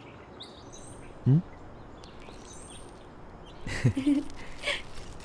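Birds chirping in the background, with two short wordless exclamations: a brief one about a second in and a louder burst of voice sounds around four seconds in, as a woman is surprised by someone stepping out with a bouquet.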